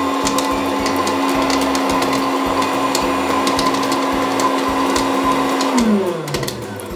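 Electric popcorn machine's motor running with a steady hum and scattered clicks, then winding down in pitch about six seconds in as the machine switches itself off.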